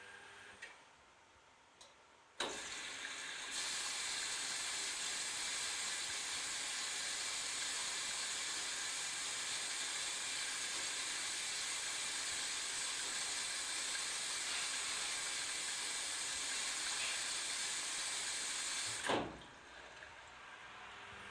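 Candy Activa Smart washing machine's water inlet valve clicking open about two seconds in, with a steady hiss of water running into the machine as it fills. Near the end the water cuts off abruptly with a click.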